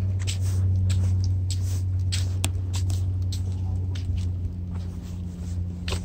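A steady, low engine hum, easing slightly after about four seconds, with scattered light clicks and taps over it.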